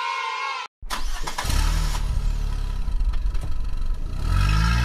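Car engine sound effect: it starts up and runs with a low rumble, then revs up about four seconds in and holds the higher pitch.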